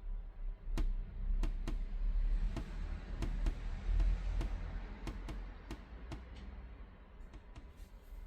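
Irregular sharp clicks and taps, roughly two a second, from handling X-Pac bag fabric and hardware during hand assembly, over a low steady hum.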